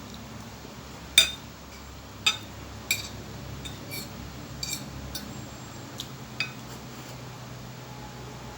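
Cutlery clinking against a plate while eating: about eight sharp clinks at irregular intervals, the loudest about a second in.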